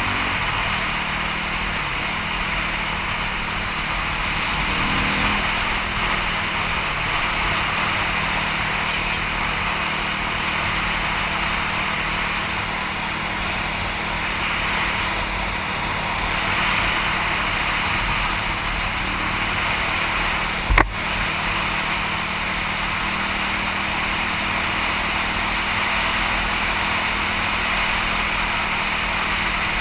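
Dirt bike engine running steadily at road cruising speed, mixed with heavy wind rushing over a helmet-mounted microphone. A single sharp click a little over two-thirds of the way through.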